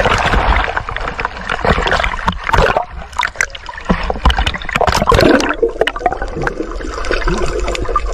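Sea water splashing and sloshing over a camera held at the surface, with many small crackles and clicks. About five and a half seconds in, the sound turns muffled and gurgling as the camera goes underwater.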